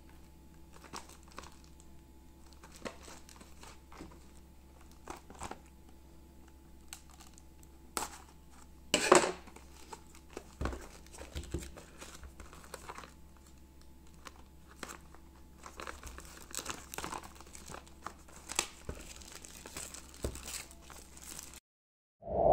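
Clear plastic shrink wrap crinkling and tearing as it is peeled off a small cardboard product box, in scattered crackles with the loudest about nine seconds in, over a faint low hum. The sound cuts off shortly before the end.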